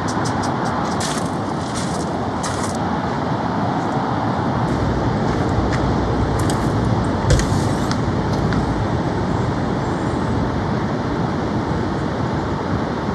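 Heavy rain falling steadily, a dense hiss with scattered sharp taps of drops. A low rumble builds through the middle.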